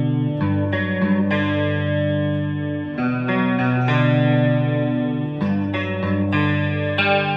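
Electric guitar (ESP LTD EC-1000) played clean through a Roland JC-120 Jazz Chorus amp with the chorus, bright switch and reverb on: picked chords left to ring with a slow chorus shimmer, changing every second or two.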